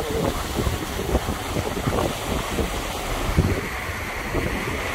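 Wind buffeting the microphone over the steady rush of churning wake water behind a motor yacht under way.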